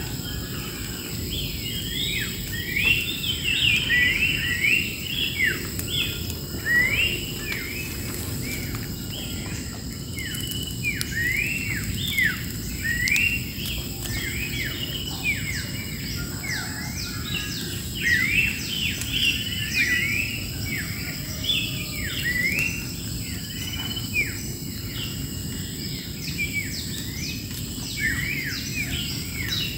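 A chorus of wild birds chirping and calling without pause, many quick sweeping notes overlapping, over a steady high insect drone and a low background rumble.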